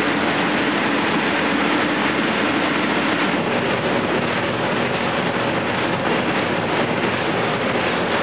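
Steady, loud rushing noise of an inflatable bounce house's air blower.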